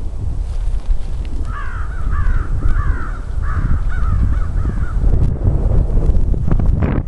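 A crow calling a quick run of about eight caws, over a steady low rumble.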